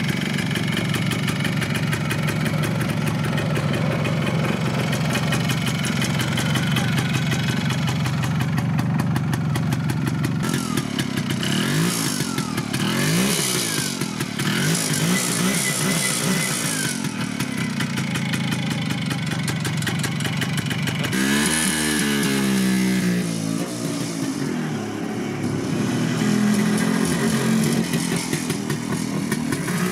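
ČZ single-cylinder two-stroke motorcycle engine idling steadily, then revved up and down a few times, with rises and falls in pitch from about eleven seconds in and again past the twenty-second mark.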